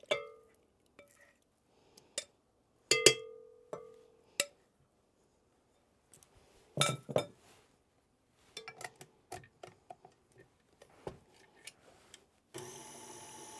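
Glass bowls clinking, some strikes ringing briefly, as melted butter is poured and scraped from one glass bowl into a KitchenAid stand mixer's glass bowl. Then come a clatter and lighter clicks and taps as the beater is fitted. About a second before the end, the stand mixer's motor starts and runs with a steady hum.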